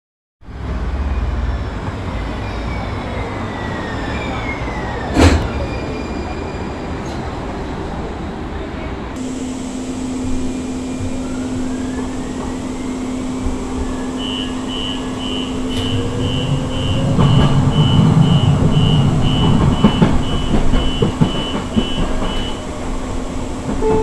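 Siemens S200 light-rail train arriving at a platform, its running tones falling in pitch, with one sharp knock about five seconds in. Then, inside the car, a steady hum and a long run of door warning beeps about two a second, while the Siemens IGBT-VVVF traction motors start up with a rising whine and rumble as the train pulls away.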